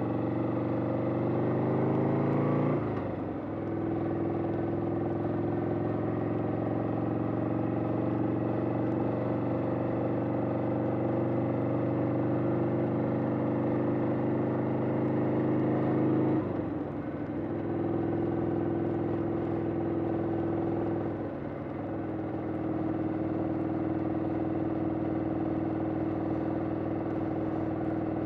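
1991 Harley-Davidson XL883 Sportster's air-cooled V-twin running under way. It rises in pitch as it accelerates for the first few seconds and dips briefly about three seconds in, as on an upshift. It then runs at a steady pitch, with two short dips in level at about sixteen and twenty-one seconds in.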